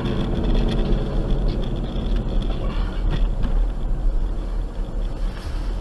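Steady road and engine rumble of a car driving at highway speed, heard from inside the cabin.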